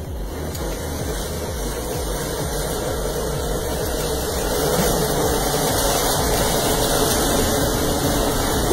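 A mass of matches, some 20,000, catching fire together: a loud rushing hiss of burning that builds over several seconds and peaks as the flare is at its largest.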